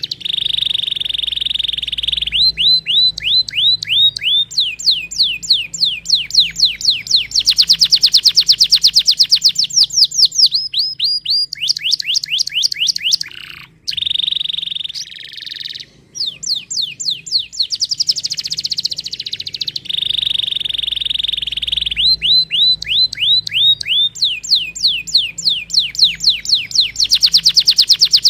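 Domestic canary singing a long run of fast repeated phrases: a steady high note, then series of quick falling whistles and rapid trills. The song breaks off briefly about halfway through.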